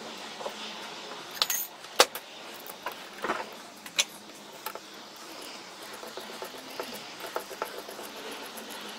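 Irregular metal clinks and knocks as a ball bearing on a bolt and a steel rod are handled against a steel machinist vise. The sharpest, loudest knock rings out about two seconds in.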